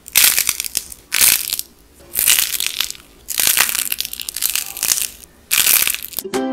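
Dried, painted clay cracking and crumbling as it is squeezed and bent by hand, in about six separate bursts of crackling with short pauses between. Music starts right at the end.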